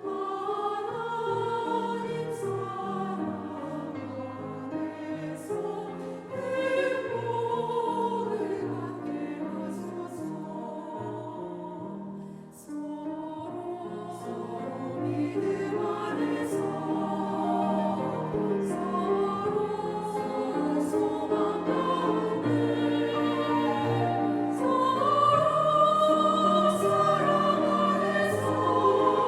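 Church choir singing a Korean gospel anthem over sustained low accompaniment. There is a brief break in the sound about twelve seconds in, and the singing grows louder toward the end.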